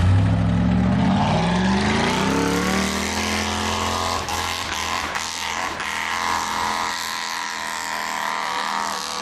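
Off-road 4x4's engine revving hard, its pitch climbing over the first three seconds, then running on at high revs.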